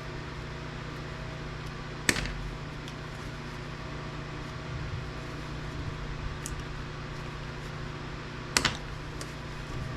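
Steady low hum of room or machine noise, broken by two sharp knocks, one about two seconds in and one near the end.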